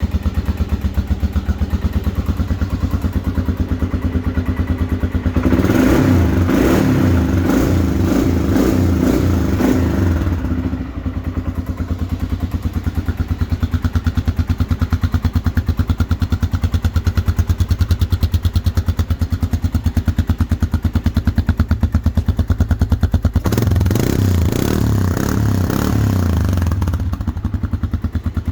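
2007 Arctic Cat DVX 250 ATV's single-cylinder engine idling steadily, revved up twice for a few seconds each: once about six seconds in and again near the end.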